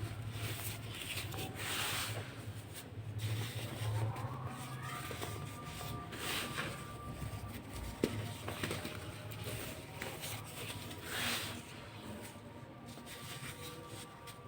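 Dry, powdery baking soda being crumbled and crunched, soft crunches coming in bursts every four to five seconds over a low steady hum.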